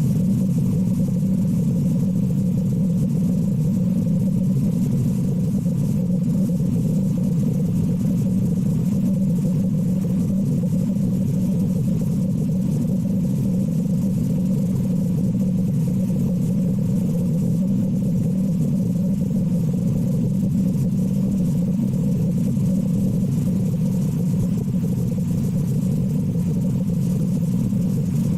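A steady, unchanging low rumble with no separate bursts or breaths standing out.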